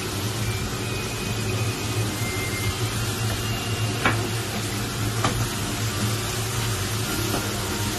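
Kitchen cooking noise: food sizzling in a pan over a steady low appliance hum, with two sharp clicks about a second apart near the middle.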